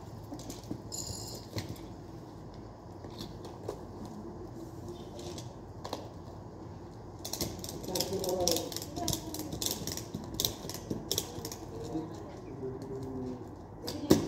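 Quick runs of sharp clicks and scrapes from hands working at the top of a strapped cardboard cargo box, thickest from about seven seconds in, with one louder knock near the end.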